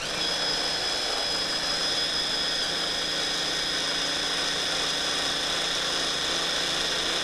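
Stick blender motor running steadily on its chopper bowl attachment, grinding walnuts into a flour-like meal. A steady high whine starts abruptly and cuts off near the end.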